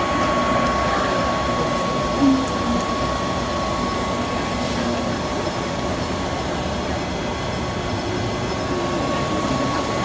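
Aerial tramway's electric drive motor and haul machinery running in the motor house: a steady rumble with a constant high whine.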